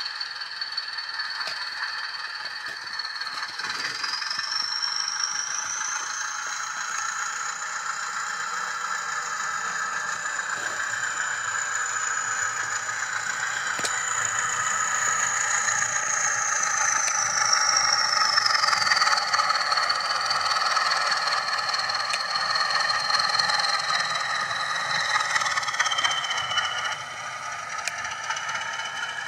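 Zimo sound decoder in a model Class 20 locomotive playing recorded Class 20 diesel engine sound through its small speaker as the loco hauls a train. A high whine rises about four seconds in, holds while the engine works harder, and falls back as the revs are eased off near twenty seconds and again near the end, over a rattle.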